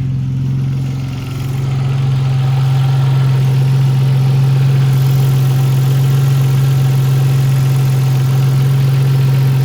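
2001 Audi B5 S4's 2.7-litre twin-turbo V6 running steadily on its new 2.0T coil packs, fitted with an ICM delete to cure a P0300 misfire. There is a brief dip in loudness about a second in.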